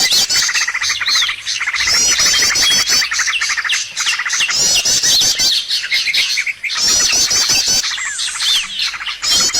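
Bird-lure (pikat) recording of several small songbirds calling at once without pause: a fast trill, high rapid warbled phrases, and short falling chirps overlapping throughout.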